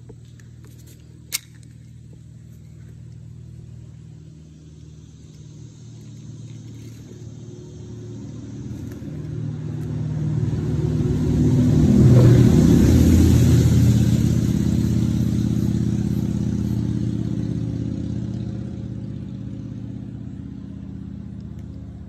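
A road vehicle with an engine passing on the highway bridge overhead, its sound building slowly to its loudest about twelve seconds in and then fading away. A single sharp click comes just over a second in.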